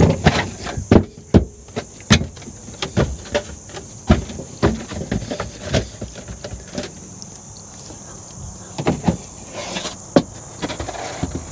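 The foam spare-tire tray of a Subaru WRX being handled and set into the trunk well: irregular knocks, taps and squeaky rubs of foam on foam and on the trunk floor, with a scraping stretch near the end. A steady high-pitched hum sits behind it.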